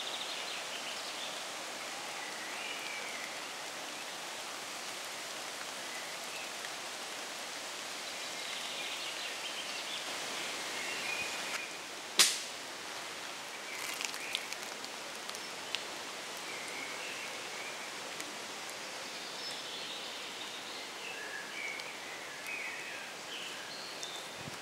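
Outdoor ambience: a steady hiss with birds chirping now and then, and one sharp click about halfway through.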